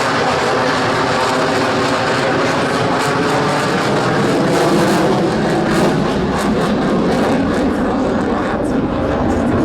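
F/A-18 Super Hornet's twin jet engines at full power during its takeoff and climb, loud and steady.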